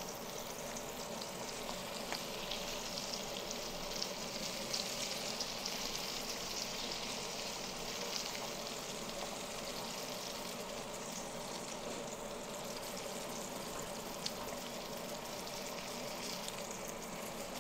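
Floured, curried baigan (eggplant) frying in a pan: a steady sizzle with scattered light crackles as the curry cooks down and the baigan crisps.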